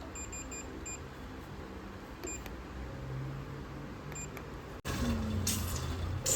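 Short, high-pitched electronic beeps: a quick run of several in the first second, then single beeps about two and four seconds in. Near the end come a few short hissing bursts.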